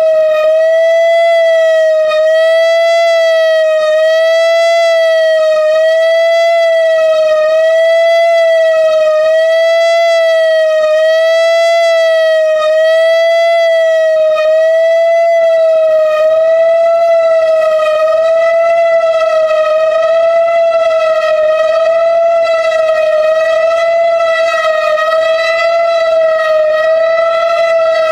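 Whelen 4004 tornado siren sounding a steady tone during a siren test. The pitch holds level, wavering slightly about every two seconds.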